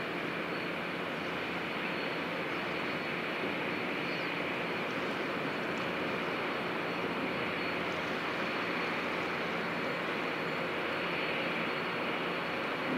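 Steady, even roar of a passing warship's machinery, the Izumo-class helicopter destroyer JS Kaga's gas turbines heard across the water, with a faint steady high whine.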